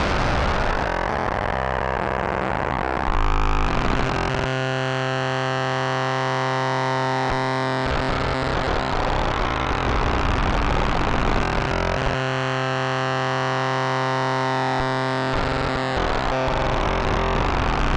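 K-ACCUMULATOR synthesizer module playing a sustained XPM drone on its own. One steady pitch holds throughout while the tone keeps changing: it shifts from a gritty, noisy buzz to a clean stack of harmonics at about four and a half and twelve seconds in, and turns gritty again in between and near the end.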